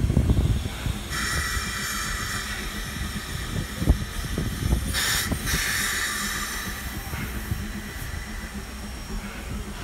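Steam locomotive letting off steam: a steady hiss starts about a second in, gushes louder briefly about halfway, and fades near the end, with steam escaping low by the driving wheels. A low rumble and a few dull thumps run underneath.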